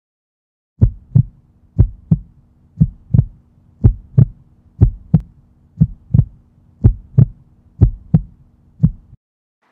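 Heartbeat sound effect: low double thumps, lub-dub, about one a second, over a faint steady low hum. It stops about half a second before the end.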